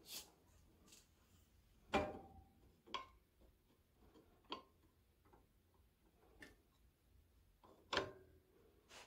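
Scattered metal clicks and knocks from hands adjusting the blade guide and vise of a 4x6 horizontal metal-cutting bandsaw that is not running. The two loudest knocks, about two seconds in and about eight seconds in, ring briefly.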